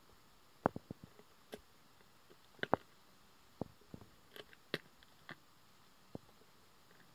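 A male lion chewing on an antelope carcass: a dozen or so sharp, irregular cracks and crunches of teeth on bone and flesh.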